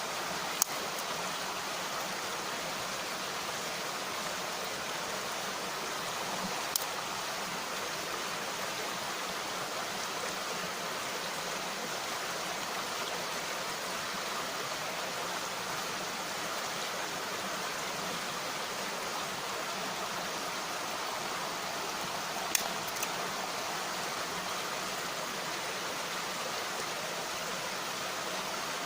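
Mountain stream rushing steadily, with a few sharp pops from a wood campfire: one near the start, one about seven seconds in, and two close together near the end.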